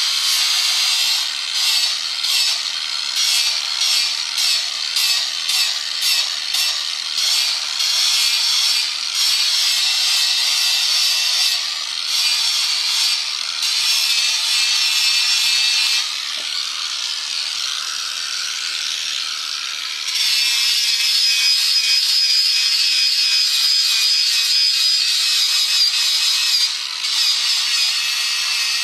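Wood for an airgun handle being cut and shaped with a tool. Rhythmic strokes come for the first several seconds, then a steadier working sound with a high whine. It eases off for a few seconds past the middle and picks up again louder.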